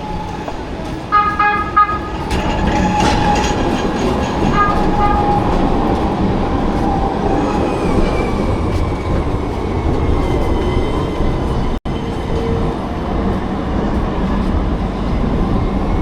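A tram passing close by, its wheels rumbling steadily on the rails. Its warning signal sounds briefly about a second in and again more briefly a few seconds later.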